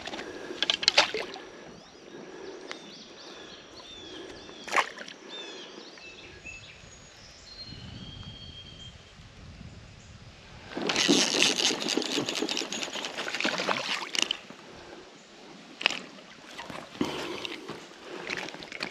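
Shallow creek water sloshing and splashing around a wading angler, with a few sharp knocks. The splashing is loudest for about three seconds just past the middle.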